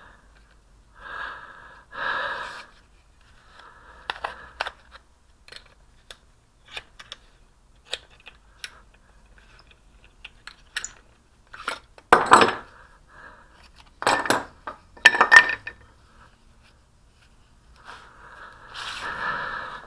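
Handling noises of a paintbrush being worked free of two thin wooden clamping boards held by a rubber band: scattered small clicks and scrapes of wood, brush and hands, with a few louder rustles and knocks about twelve and fifteen seconds in.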